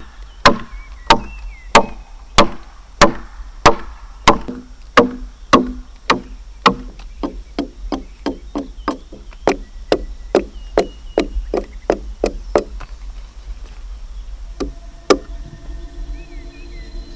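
Hand axe chopping into a peeled log, cutting a notch for a log-cabin corner joint: a steady rhythm of sharp blows, about one and a half a second, weakening after about twelve seconds, then two last blows a few seconds later. Birds chirp faintly.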